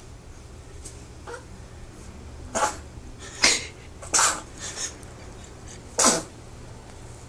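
A three-month-old baby sneezing in a run of short, sharp sneezes about a second apart, four of them loud and one softer.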